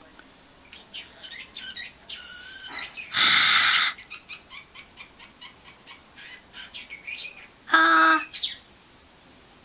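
Male Pacific parrotlet chirping and chattering in a string of short, quick calls. A loud, harsh, hissing burst comes a little after three seconds, and a shorter, louder call comes near eight seconds.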